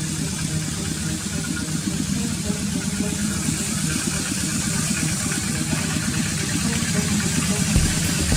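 An engine running steadily with a fast low pulsing.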